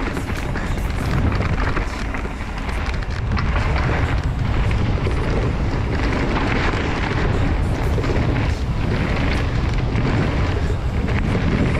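Trek Slash 8 mountain bike running down a dirt trail: a continuous rough rumble of wind buffeting the microphone and tyres on the ground, with scattered knocks from the bike over rough terrain.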